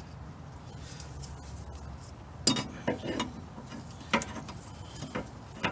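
Metal clinking and knocking as steel sway bar end links and their fittings are handled and lined up under the car. Several short, sharp clinks come at irregular moments from about halfway in, over a low steady hum.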